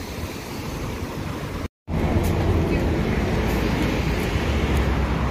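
Roadside street noise with wind on the microphone, cut off abruptly about a second and a half in. Then the steady low rumble and road noise of a moving bus, heard from inside.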